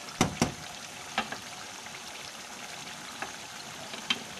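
Chicken livers and onions sizzling steadily in oil in a frying pan, with two sharp clicks near the start and single clicks about a second in and near the end.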